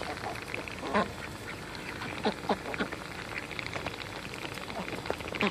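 A group of ducks chattering their bills in the air as if dabbling, a fast wet chatter that sounds like bills sifting a bowl of water, broken by several short quacks.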